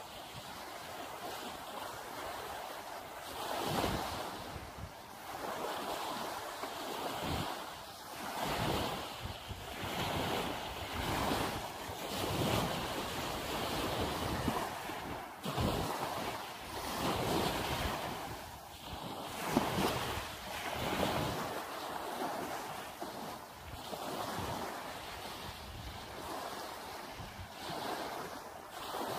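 Small waves washing up onto a sandy beach and drawing back, a hiss that swells every second or two. Gusts of wind buffet the microphone, now and then with deep rumbles.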